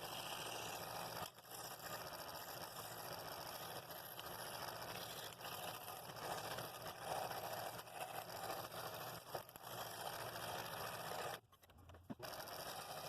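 Scroll saw cutting thin wood, its blade running with a fast, steady chatter that briefly drops out about a second in and stops for under a second near the end.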